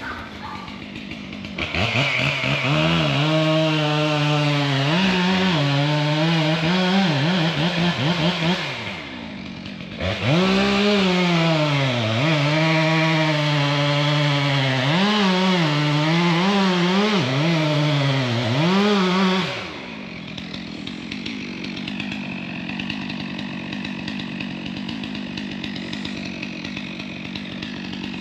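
Two-stroke chainsaw cutting wood, running at high revs with its pitch repeatedly sagging and recovering as the chain bites, in two long runs with a brief let-off about nine seconds in. After about twenty seconds it drops to a quieter, steady running.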